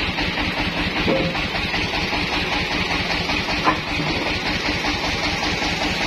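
Sawmill engine idling steadily, with one sharp knock a little past halfway through.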